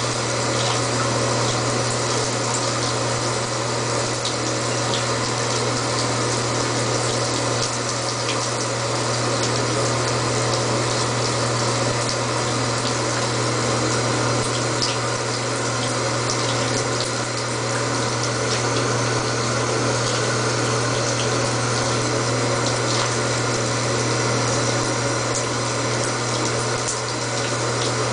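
Bathtub tap running, a steady stream of water pouring from the spout and splashing into the filled tub.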